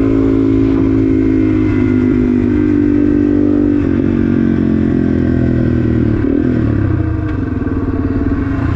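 Yamaha TW200's single-cylinder four-stroke engine running under way, its note dropping in pitch about two and four seconds in and easing off a little near the end.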